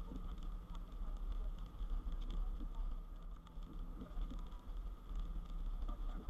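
Steady low road rumble of a car driving, heard from inside the cabin, with a light patter of raindrops on the windshield.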